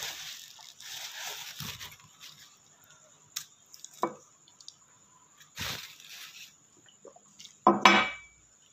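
A person breathing hard through the mouth in short breathy bursts, with wet mouth sounds and a tissue pressed to the mouth at first, reacting to the burn of very spicy chili noodles; a short voiced grunt comes near the end.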